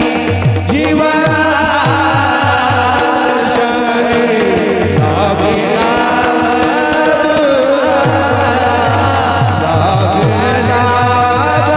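Devotional kirtan melody sung with a hand drum, over steady held tones. The drum strokes are low and slide downward in pitch, repeating throughout.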